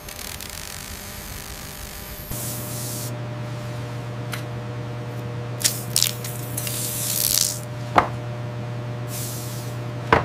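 Handheld trigger spray bottle misting in about four short hisses, starting about two seconds in, over a steady low hum. A couple of sharp clicks fall between the sprays.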